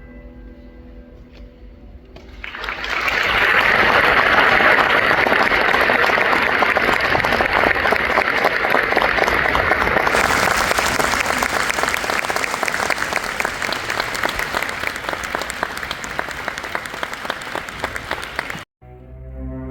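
Audience applauding, swelling in about two seconds in as the orchestra's last notes die away. It holds loud and even, then cuts off suddenly near the end.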